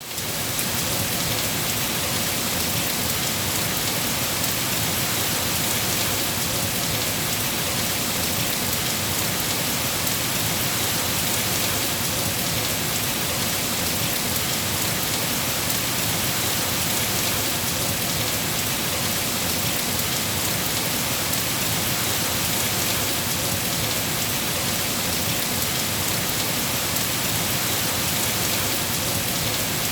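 Steady rain falling on a rainforest canopy: an even, unbroken hiss, brightest in the high range. It fades in quickly at the very start, with no thunder claps.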